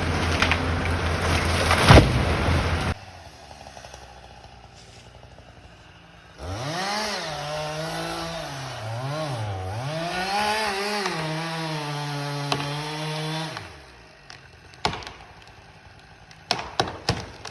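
Chainsaw engine revving up and cutting, its pitch dipping twice as it loads in the wood, then holding steady before it drops off. Before it there is a loud noisy stretch with a sharp crack, which ends abruptly. Near the end come scattered sharp cracks of splintering wood.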